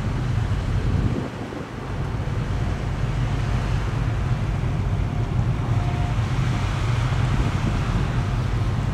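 Wind buffeting the microphone: a steady low rumble that drops briefly just after a second in.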